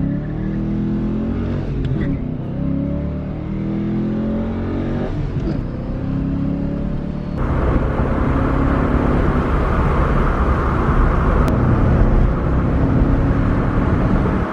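1993 Ford Mustang Cobra's 5.0 V8, breathing through JBA shorty headers and a 2.5-inch Dynomax cat-back, heard from inside the cabin while driving, its exhaust note climbing and dropping as it pulls. About seven seconds in it changes abruptly to a louder, steadier run with more road and wind noise.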